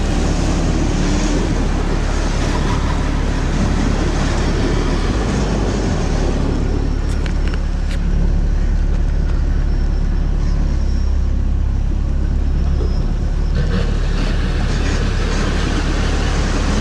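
Sherp amphibious ATV's engine running steadily, heard from inside the cab as a loud, even drone, with a few faint clicks about seven seconds in.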